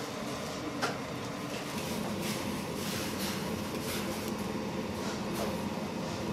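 A large steel kettle of water at a rolling boil with bagels floating in it: steady bubbling over a low steady hum, with a short sharp clink or splash about a second in.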